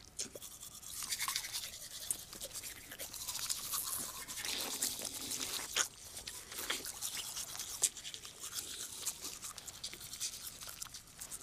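Manual toothbrushes scrubbing teeth: a run of rapid, scratchy brushing strokes from two people brushing at once, one of them noisily enough to draw a complaint.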